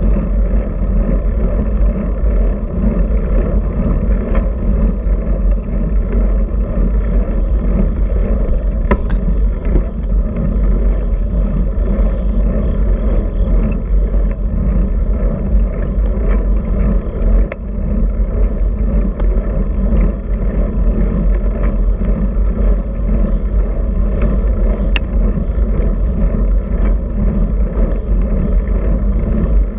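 Steady wind rush and tyre-on-asphalt road noise on a bicycle's handlebar-mounted camera microphone while riding at speed, with a couple of faint clicks.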